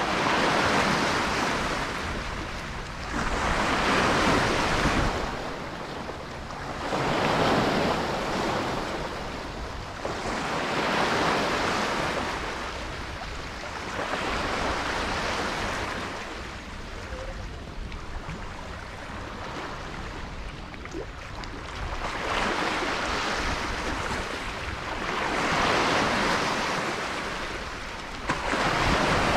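Small waves washing in, each swelling and fading about every three to four seconds, over a steady hiss of rain.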